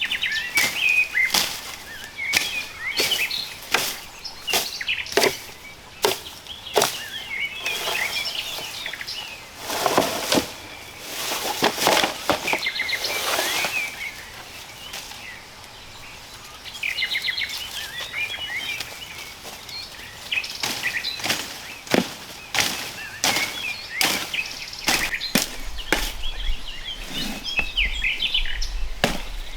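Birds chirping, with many sharp, irregular knocks and some rustling.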